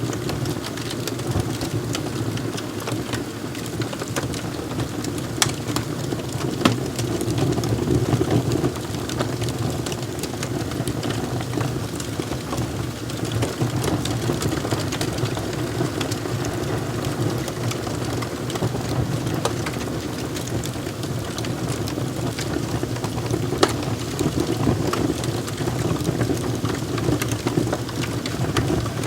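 Wood fire crackling: a steady low rumble of burning with frequent small snaps and pops, a few of them sharper and louder.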